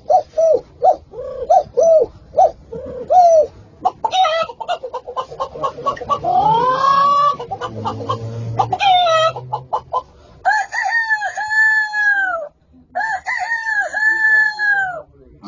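A person imitating a chicken with the voice: a run of short, quick clucks, then some rising squawks, and then two long crows like a rooster's cock-a-doodle-doo near the end.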